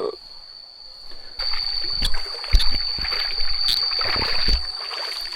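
Insects buzzing on one steady high note. About a second and a half in, a louder rustling noise with low thumps joins it, and a faint held singing voice sounds in the distance.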